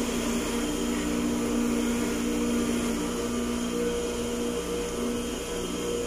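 Electric water pump motor on a pressure-tank system running with a steady hum.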